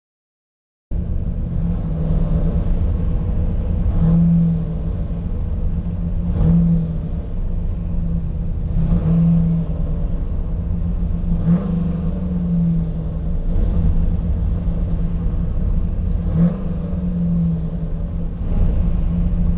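Holden Commodore VK's 308 V8 engine idling, heard from inside the car, starting about a second in. The idle swells in a regular lope about every two to two and a half seconds.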